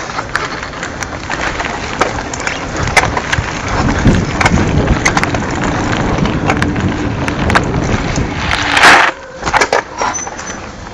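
Mountain bike rolling over a rough dirt and rock trail, a steady rattle and crunch with many small clicks and knocks. A short, loud hissing scrape comes about nine seconds in.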